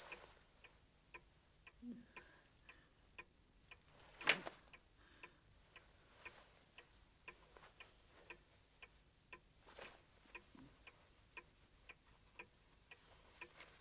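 Clock ticking steadily in a quiet room, about two ticks a second, with a brief louder noise about four seconds in.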